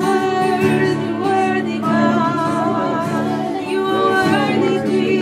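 Worship music: voices singing wordlessly over sustained keyboard chords.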